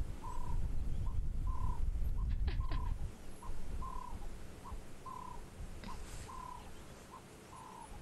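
Ring-necked dove (Cape turtle dove) calling: a steady two-note coo, a short note then a longer one, repeated about once a second, with a low rumble under it in the first few seconds and a few brief high chirps from small birds.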